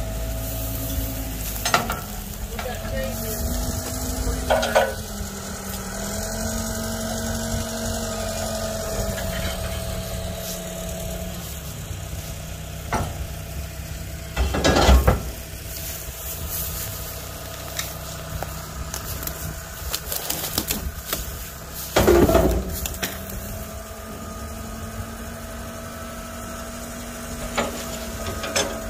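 An engine running steadily, its pitch rising and falling a little, with a few loud knocks, the loudest about halfway through and again a few seconds later.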